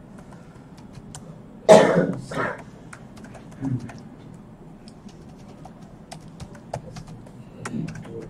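A person coughs twice, loudly, about two seconds in. Later, light clicking of keys on a computer keyboard as a file name is typed.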